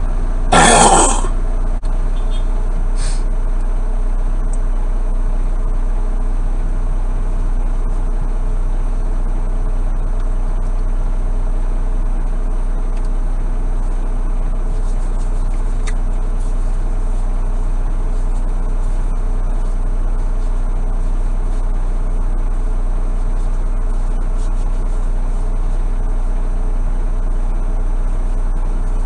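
Semi truck's diesel engine idling steadily, heard from inside the cab, with a short burst of noise about a second in.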